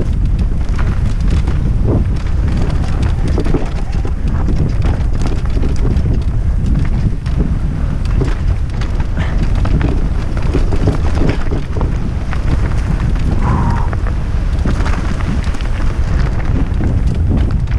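Heavy wind noise on the microphone from a mountain bike descending fast, with the tyres running over a rough dirt singletrack and the bike clattering over bumps throughout.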